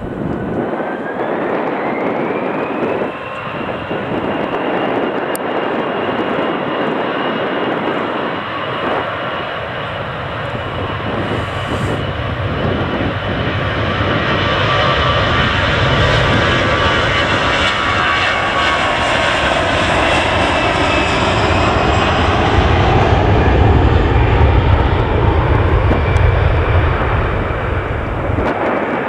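Rolls-Royce Trent 700 turbofans of an Airbus A330-243 airliner running loud on the ground. A jet whine rises in pitch over the first two seconds and then holds steady over a dense rush, and a deep rumble builds in the second half.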